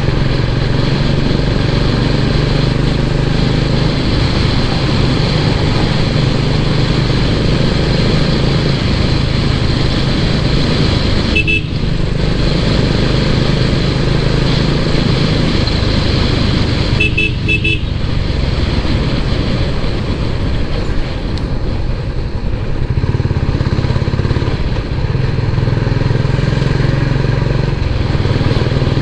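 Royal Enfield Classic 350's single-cylinder engine running steadily under way at speed, with wind and road noise. A vehicle horn sounds briefly about a third of the way in, then a few quick beeps a little later.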